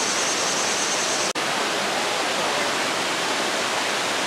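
Steady rushing of running water, like a waterfall or stream, which drops out for an instant about a second in.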